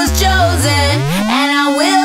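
Background music. A deep bass note slides up in pitch about a second in and then holds steady under wavering melodic lines.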